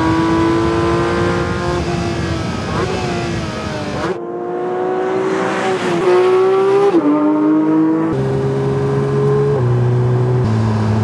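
Porsche 911 GT3's naturally aspirated flat-six (boxer) engine under hard acceleration: the exhaust note climbs in pitch and drops quickly at each gear change, several times. The sound changes abruptly about four and eight seconds in. After that the engine note is lower and steps down twice near the end.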